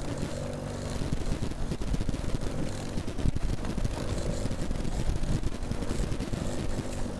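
Fishing boat's motor running steadily while trolling, a constant hum, with wind buffeting the microphone.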